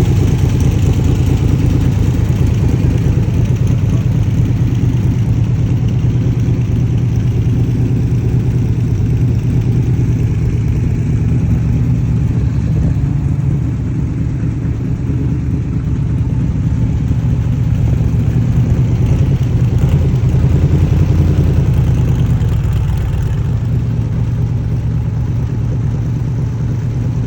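Original Shelby 427 Cobra's Ford FE big-block V8 running steadily at idle, a deep, even rumble that swells a little about twenty seconds in and then settles back.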